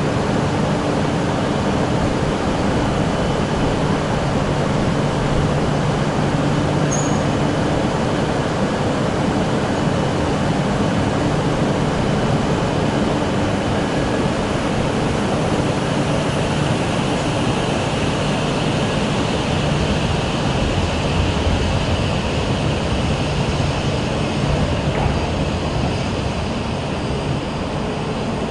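Steady running noise of an E5/E6 series Shinkansen train: an even rush with a low steady hum and no sharp events.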